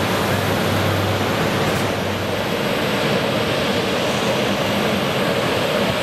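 Saab 2000 turboprop airliner's two Allison AE 2100A engines and six-blade propellers at takeoff power as it lifts off and climbs away: a steady, loud drone with a low hum underneath.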